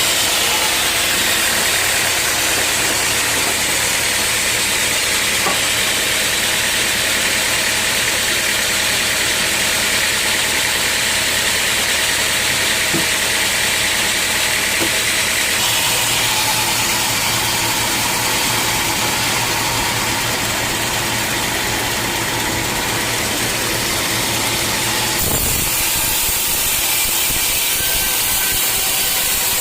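Sawmill machinery running steadily: a motor hum under a loud, even hiss, changing abruptly twice, at about 16 and 25 seconds.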